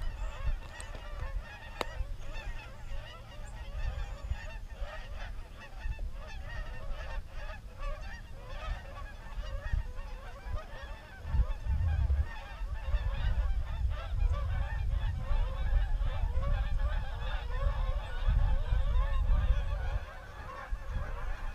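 A flock of geese flying over, honking continuously with many overlapping calls. Gusty wind rumbles on the microphone underneath, heaviest in the second half.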